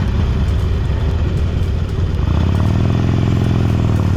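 Harley-Davidson Forty-Eight's air-cooled V-twin engine running, its note rough at first and then holding steady from about two seconds in.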